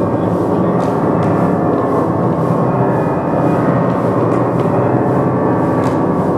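A loud, steady, gong-like metallic drone of many held tones, with a few faint clicks over it.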